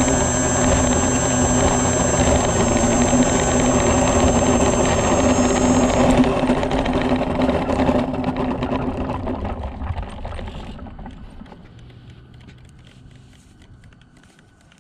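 Electric motor and propeller of an AeroScout RC airplane running steadily with a high whine. About six seconds in the whine stops and the sound fades away over the following several seconds as the motor winds down.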